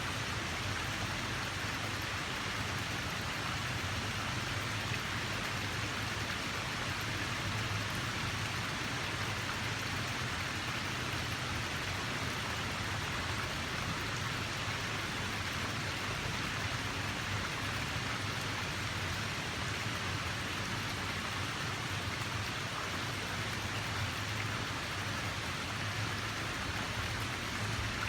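Steady, even rush of water noise that holds at one level throughout, with no single splashes or drops standing out.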